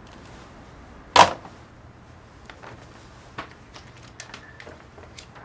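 A single sharp clunk about a second in, like a hard object set down or shut, followed by faint scattered small clicks and taps.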